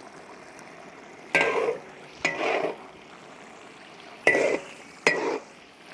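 A wok spatula knocking and scraping in a wok four times, each a short clank with a brief scrape after it, as starch slurry is stirred in to thicken the mapo tofu sauce.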